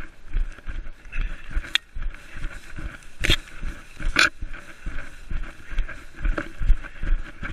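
A runner's footsteps thudding steadily through tall grass, with the grass swishing against the legs and two louder brushes of grass near the middle.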